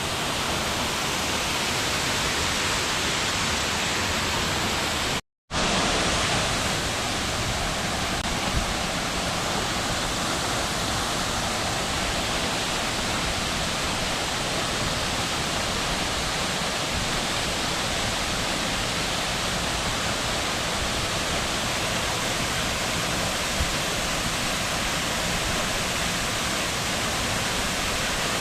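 Steady rush of a waterfall's falling water, cutting out briefly to silence about five seconds in.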